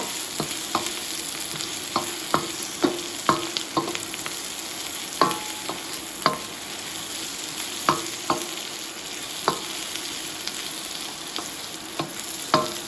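Vegetables sizzling in a hot wok as they are stir-fried, with a steady frying hiss. A utensil knocks against the wok at irregular intervals, about one or two strikes a second, and the metal rings briefly after some of them.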